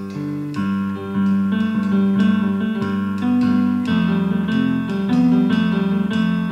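Instrumental music: a picked melody on plucked strings over a bass line, one note after another.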